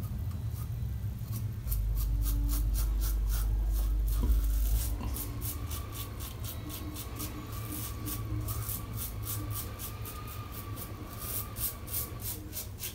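Karve CB safety razor with a much-used Gillette Super Stainless blade scraping through lathered stubble under the lip and on the chin, in short strokes about three a second. The blade is still cutting without struggling. A low rumble runs for a few seconds near the start.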